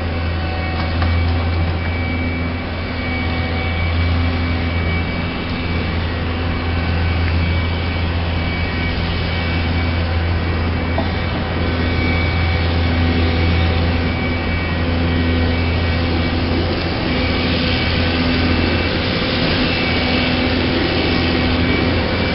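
Engine of a yellow rail maintenance machine running steadily as it travels along the track, a low hum throughout. More hiss comes in over the last few seconds as the machine draws nearer.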